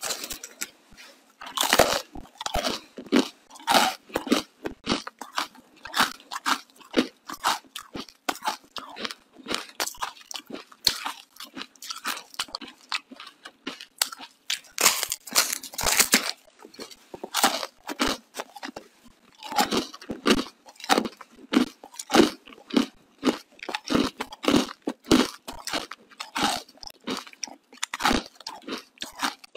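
Biting into a hard block of frozen ice and chewing it: loud, crisp crunches in quick irregular runs, with short pauses between bites.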